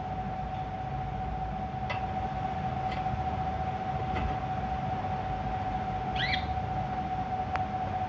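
Budgerigar giving one short chirp about six seconds in, over a steady hum and room noise, with a few faint clicks.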